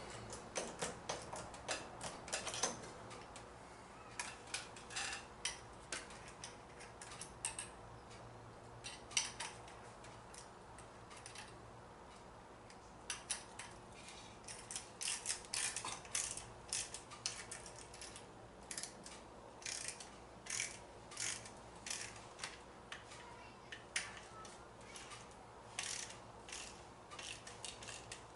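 Ratcheting screwdriver clicking in irregular runs, with short pauses, as a wood screw is driven by hand through a pilot hole into a wooden leg.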